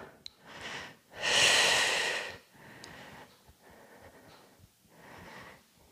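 A woman breathing during an exercise. There is one loud, noisy breath about a second in that lasts roughly a second, followed by fainter breaths.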